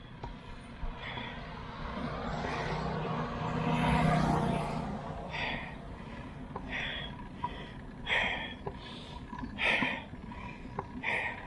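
A motor vehicle passes, its engine loudest about four seconds in. After it, hard rhythmic breathing from a cyclist climbing a steep road, one heavy breath about every second and a half.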